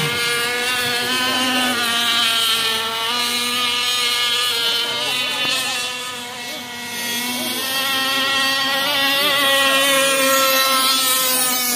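Radio-controlled racing speedboats running at speed, their small engines giving a loud, high-pitched whine whose pitch wavers up and down as they race. The sound dips slightly about six seconds in, then comes back up.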